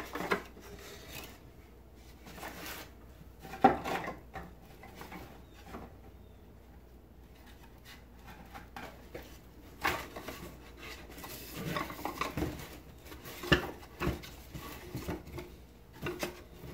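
Wooden beehive frame parts clattering and rubbing against each other and a wooden frame jig as they are handled, with scattered knocks, the sharpest a little under four seconds in.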